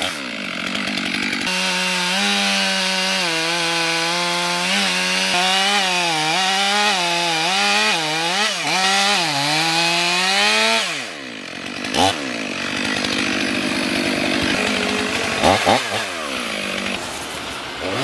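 Gas chainsaw cutting into the trunk of a large standing tree at full throttle, the engine pitch wavering up and down as the chain loads in the wood. About eleven seconds in the pitch falls away and the level dips briefly, then the saw runs on with a rougher, noisier sound.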